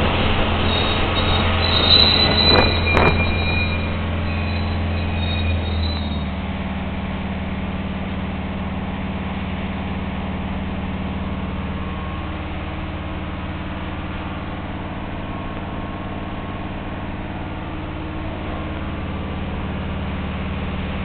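Inside an articulated electric trolleybus in motion: a steady low electric hum over road and tyre noise, the hum shifting about six seconds in. A couple of sharp knocks with a brief high whine come two to three seconds in.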